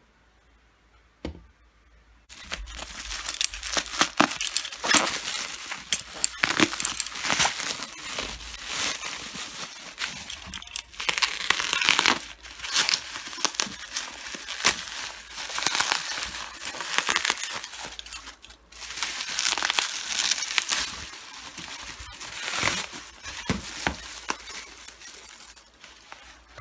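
Lightstick packaging being unwrapped by hand: continuous crinkling and tearing with many sharp clicks, starting about two seconds in after a single soft knock.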